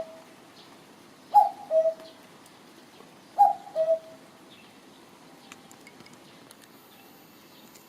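Common cuckoo singing its two-note "cuck-oo", the second note lower than the first. Two full calls come about two seconds apart, and the bird falls silent after about four seconds.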